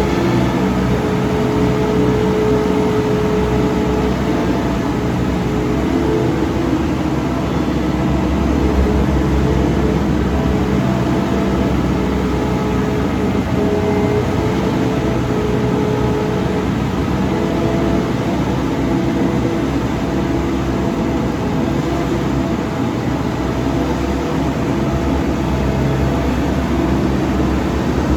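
Diesel engine of heavy farm machinery running steadily under a constant load, an even hum with a few held tones that shift slightly in pitch now and then.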